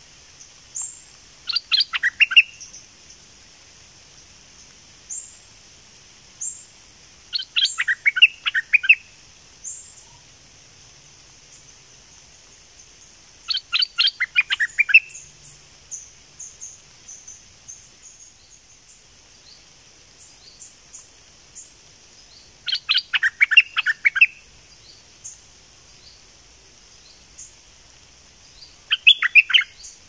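Stripe-throated bulbul singing: five short bursts of quick, warbling notes, spaced roughly six seconds apart, over a steady high hiss and fainter high chirps.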